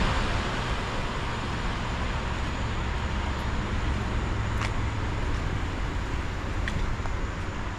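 A car on the move: steady road and tyre noise.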